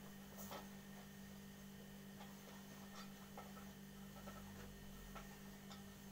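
Faint, scattered soft ticks and taps from hands kneading mawa dough on a steel plate, over a steady low hum.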